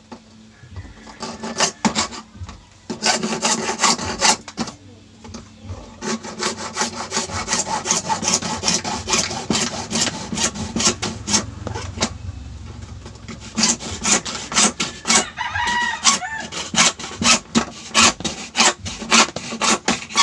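Hacksaw cutting through a PVC knife scabbard in quick back-and-forth strokes, with a couple of short pauses in the first few seconds before the sawing runs on steadily.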